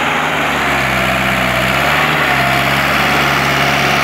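Ford 5000 Super tractor's four-cylinder engine running steadily as the tractor pulls a trailer past. Its engine speed steps up slightly about two seconds in.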